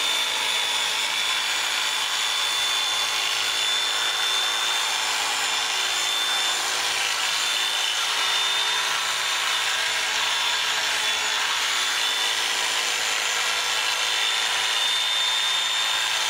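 Electric sheep-shearing handpiece running steadily as it shears the fleece off a sheep, a constant high mechanical whine over a rasping hiss.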